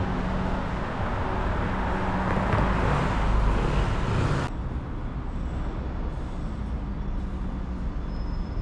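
Steady city traffic noise with a low engine hum; about four and a half seconds in the sound changes abruptly and turns duller.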